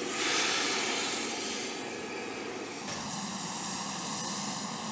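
Aircraft turbine engines running on a flight line: a steady rushing noise that changes about three seconds in to a steadier run with a few held tones.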